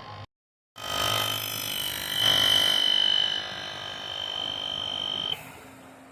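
Shared massage chair running, its motors and air pump giving a steady high whine over a buzz. The sound starts after a brief gap of silence and stops suddenly about five seconds in.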